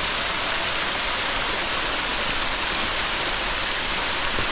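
Steady rush of water pouring down a rain-fed waterfall.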